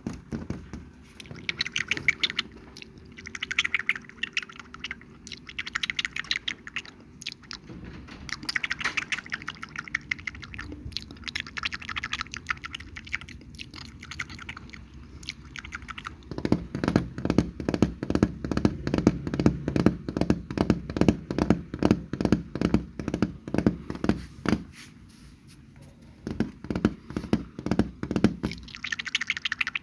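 Close-miked ASMR mouth sounds: wet clicks and smacks in short groups every second or two, then from about halfway a faster, louder run of wet pops, breaking off briefly and starting again near the end.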